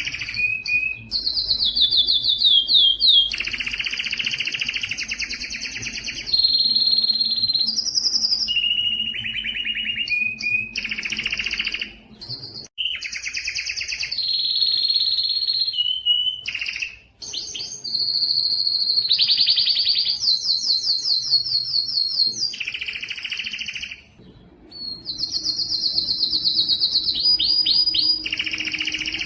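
Spanish timbrado canary singing a continuous song of rapid repeated-note trills, held steady whistled tones and dense rolling phrases, broken by short pauses about 12, 17 and 24 seconds in.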